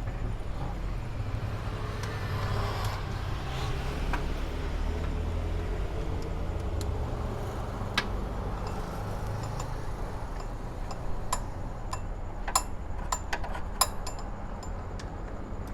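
Hand tools clicking sharply against metal, several times in the second half, while the bolts holding a Suzuki Swift's air-conditioning compressor are undone, over a steady low rumble.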